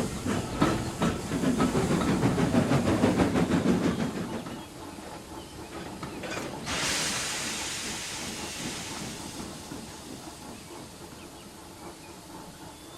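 Steam engine chuffing in quick, even beats, fading away about four seconds in. A little later comes a sudden hiss of released steam that slowly tails off.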